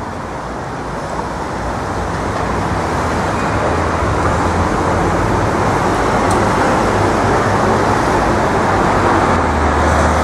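Steady city street traffic noise with a low rumble. It grows louder over the first few seconds, then holds.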